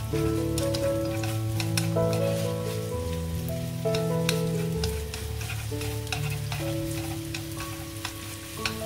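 Sliced shallots sizzling and crackling in hot oil in a wok while being stirred with wooden chopsticks, over background music of held, stepping notes.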